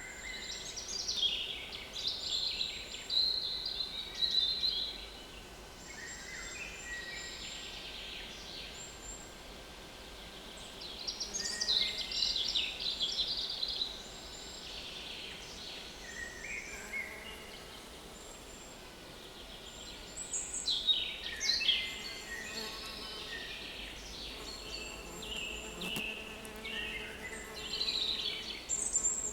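Small woodland songbirds singing in repeated bursts of high, twittering song, with flies buzzing close to the microphone as a faint steady hum beneath.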